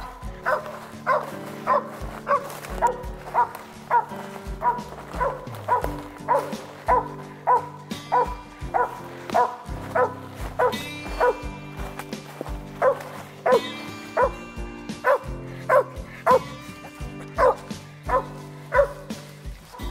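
A cur squirrel dog barking steadily at the base of a tree, about two sharp barks a second without a break: a tree bark, the sign that it has a squirrel treed. Background music runs underneath.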